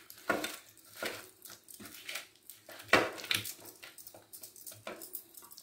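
A hand mixing masala-coated fish in a steel bowl: irregular soft wet squishes and scrapes with a few light clicks, loudest about three seconds in.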